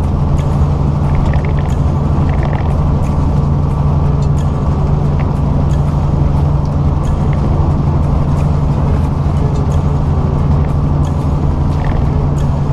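Truck engine and road noise heard from inside the cab while driving: a loud, steady low drone, with scattered light clicks over it.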